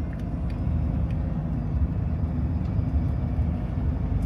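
Steady low rumble of a campervan driving, engine and tyre noise heard from inside the cab.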